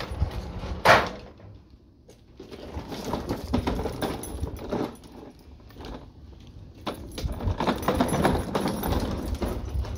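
A loud clunk about a second in, then the clattering rattle of a petrol push lawn mower being dragged and wheeled out over a concrete floor, in two stretches.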